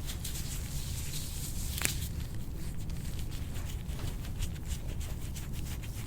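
Hands massaging and rubbing skin: soft rustles and small clicks over a steady low hum, with one sharper click about two seconds in.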